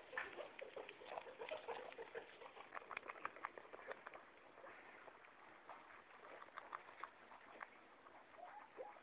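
Faint irregular clicking and rustling around a pet guinea pig being handled, busiest in the first four seconds and sparser after.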